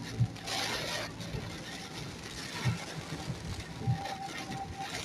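Emergency vehicles on a wet road in typhoon rain: a hiss of tyres or spray swells about half a second in, under a faint two-tone ambulance siren (the Japanese hi-lo "pee-po"). A short low thump repeats about every second and a quarter.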